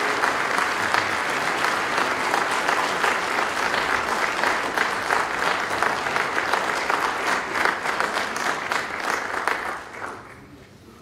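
Congregation applauding, a dense run of many hands clapping that dies away near the end.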